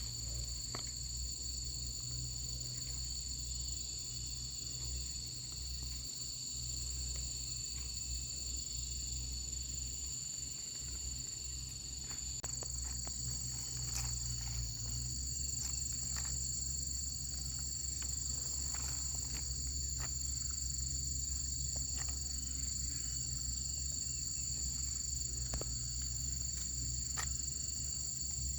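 Insects chirring steadily outdoors as two unbroken high-pitched tones, cricket-like, over a low steady hum. Scattered light clicks and knocks come in from about halfway through.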